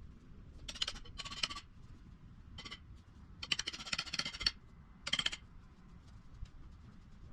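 Light metal clinking and jingling in five short bursts; the longest lasts about a second, in the middle.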